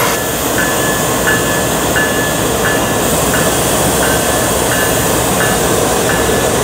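Canadian Pacific ES44AC locomotive pulling a grain train slowly away, its GE GEVO-12 diesel engine working, with a steady heavy rumble and noise. A short high ding repeats about one and a half times a second throughout.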